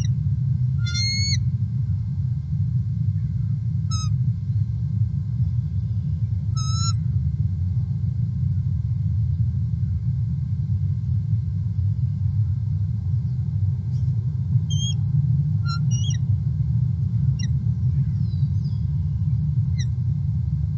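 Bald eagles giving short, high-pitched chirping calls, a few early on and then a quicker run of them over several seconds near the end. Under them runs a steady low rumble.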